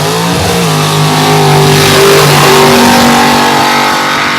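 Off-road 4x4 engine revved hard. It climbs in pitch right at the start and is then held at high revs, with a second, higher engine tone joining about halfway through.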